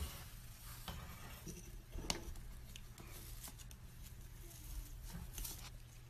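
Faint scratching and a few scattered light clicks as a white-bellied caique rolls and scrabbles on its back on a wooden floor against the baseboard.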